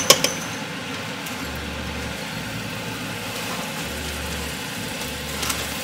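Breaded cauliflower frying in butter in a nonstick pan, a steady sizzle. At the start, a few quick taps of a metal spoon against the pan as more butter goes in.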